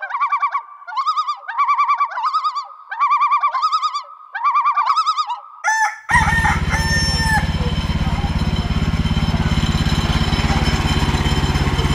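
A high warbling call repeated in short phrases, then about six seconds in it cuts off and the band sawmill's small gasoline engine is heard running steadily.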